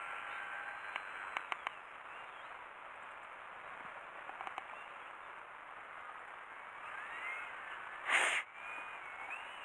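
Electric motor and propeller of a radio-controlled foam model plane in flight, heard as a faint steady hiss with a thin whine that wanders up and down in pitch from about seven seconds in. A few light clicks about a second in, and a short loud rush of noise about eight seconds in.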